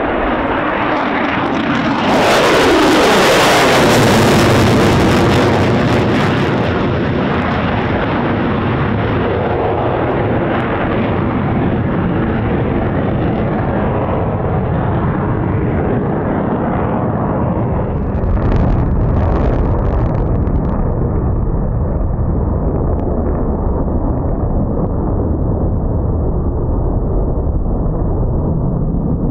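F-35 Lightning's single F135 turbofan during a low flyby: a loud jet roar with a whine that falls sharply in pitch about two to four seconds in as the jet passes, then a steady deep rumble as it climbs away.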